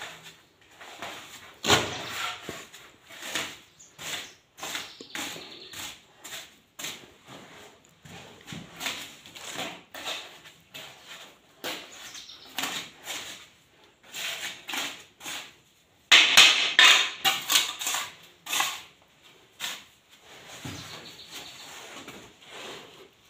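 Gritty scraping and shuffling on a freshly laid sand-cement floor screed as it is worked and levelled by hand, in irregular strokes with occasional knocks. A quick run of louder scrapes comes about two-thirds of the way through.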